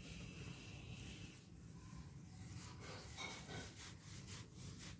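Whiteboard eraser rubbing across a whiteboard to wipe it clean, faint, with a run of quick back-and-forth strokes in the second half.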